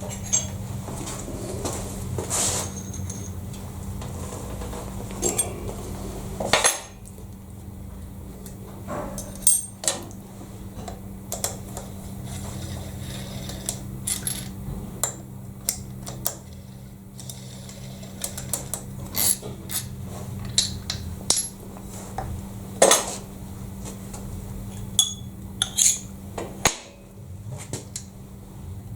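Irregular metallic clinks and taps of steel tools and parts as a milling vice is taken apart and its jaw screws worked on, with a sharper clank about six and a half seconds in and again near 23 seconds, over a steady low hum.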